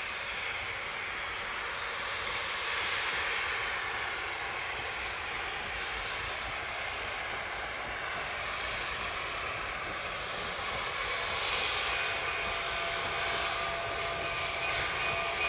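Narrow-gauge steam locomotive hauling a passenger train, heard from a distance as a steady rumble and hiss that grows slowly louder as it approaches. Faint thin steady tones join in about two-thirds of the way through.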